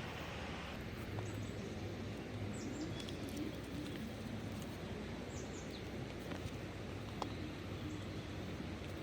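Birds chirping a few times, short high calls scattered over a steady low rumble.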